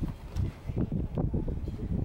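Footsteps on asphalt, irregular low thumps several times a second, over a low rumble of wind and handling noise on the microphone.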